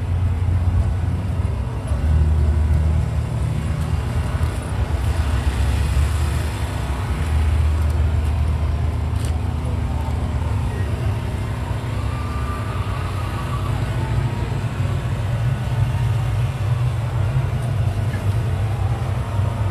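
Wind buffeting the phone's microphone: a low rumble that swells and fades in gusts over steady outdoor background noise, with one faint click about nine seconds in.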